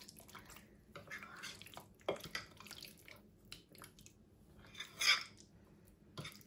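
A spoon stirring chicken pieces through a thick yogurt marinade in a glass bowl: faint wet stirring with scattered light clicks of the spoon against the glass, the loudest about five seconds in.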